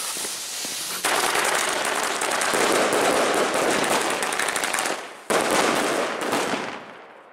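Two Lesli Tanker 16-4 fireworks going off: a fuse hiss, then from about a second in a dense, rapid crackling. The crackling stops briefly near five seconds, starts again, and fades toward the end.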